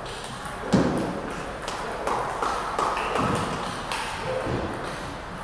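Table tennis rally: the celluloid ball is struck back and forth by paddles and bounces on the table, giving a string of sharp clicks, the loudest about three quarters of a second in.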